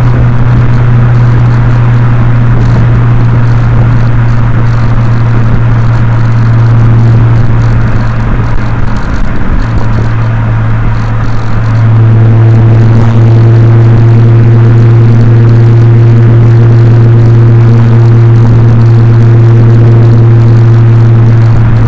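Subaru Legacy Spec.B's 3.0-litre flat-six with a muffler delete, its exhaust droning at steady revs while driving, recorded from outside the car with wind noise overloading the microphone. About twelve seconds in, the drone grows fuller and steadier.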